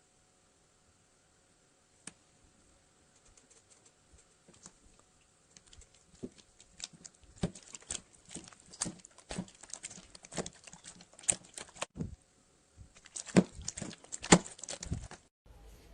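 Slime being worked by hand, giving a run of short clicks. They start sparse and faint and grow denser and louder from about six seconds in.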